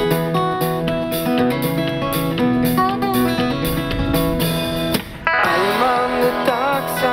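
Background music: a guitar-led song with acoustic guitar, breaking off for a moment about five seconds in.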